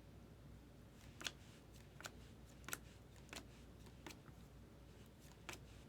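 Trading cards being flipped through one at a time, each card giving a faint click or snick, about six times at fairly even intervals.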